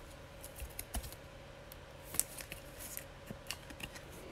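Faint rustling and scattered light clicks of trading cards being handled and slid in plastic card sleeves, with one sharper click a little over two seconds in.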